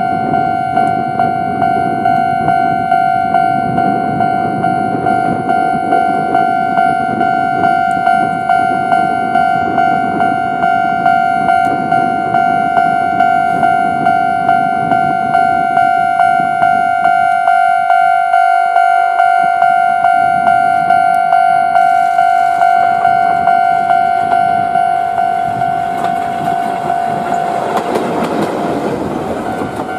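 Railway level-crossing warning bell ringing steadily, a pulsing electronic tone about one and a half times a second. Under it is the rumble of an approaching electric locomotive, which grows near the end as it passes close by.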